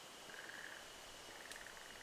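Frogs calling in short, rapidly pulsed trills, about three in a row. A single crackle from a wood fire comes about one and a half seconds in.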